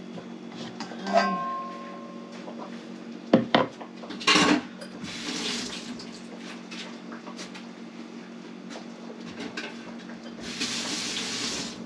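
Kitchenware handling: one ringing clink about a second in, a few sharp knocks a few seconds later, and two spells of rustling near the middle and near the end, as garlic, peppers and shallot are put into a plastic blender cup. A steady low hum runs underneath.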